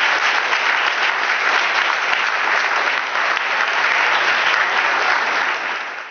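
Live audience applauding steadily, fading out near the end.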